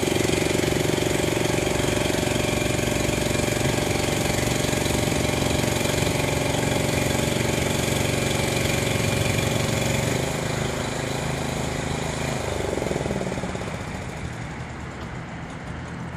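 Small engine on a shore conveyor running steadily. About ten seconds in its tone shifts, and it grows quieter toward the end.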